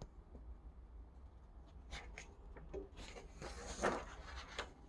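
Faint rustle and slide of a large picture-book page being turned, about three seconds in, with a few light clicks of fingers on paper before it, over a low steady hum.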